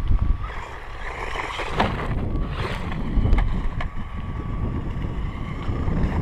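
Wind buffeting the microphone in a low rumble, over the thin, steady whine of a 1/16-scale electric RC short-course truck's motor as it drives across gravel, with a few sharp clicks around the middle.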